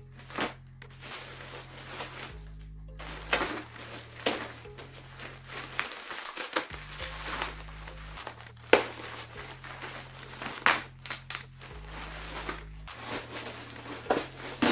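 Plastic shipping packaging crinkling and crackling in many irregular bursts as a parcel is opened, over background music with a low bass line.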